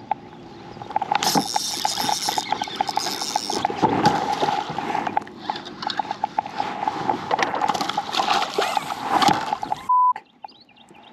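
Shimano Sedona spinning reel clicking and whirring as a bass is fought to the kayak, with water splashing at the surface. A short steady beep sounds near the end.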